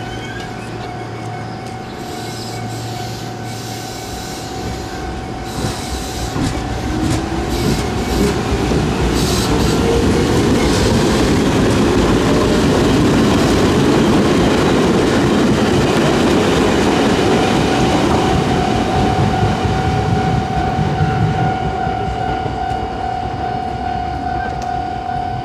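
Chichibu Railway 5000 series electric train pulling away and passing: its traction motors whine, rising in pitch as it accelerates, then the wheels rumble loudly on the rails. A level-crossing warning bell rings steadily at the start and again in the last third.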